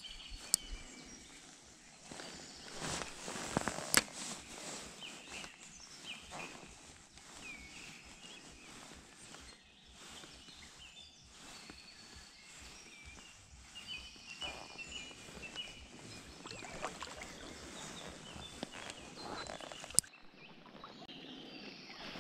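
Outdoor ambience by a small forest stream, with birds calling on and off and a few sharp clicks from the spinning reel as it is handled, the loudest about four seconds in and near the end.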